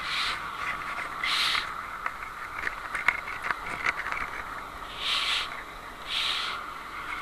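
Outdoor street background noise with handheld camera handling sounds: scattered clicks and four short hissy bursts.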